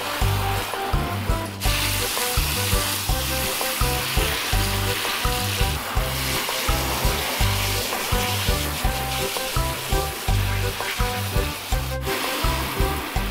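Water hissing from a garden hose spray nozzle and spattering onto a plastic toy ride-on car, over background music with a steady beat.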